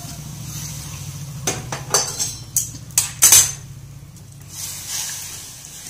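Steel ladle stirring thin gravy in a stainless steel pan, clinking against the metal several times over a couple of seconds, over a steady low hum.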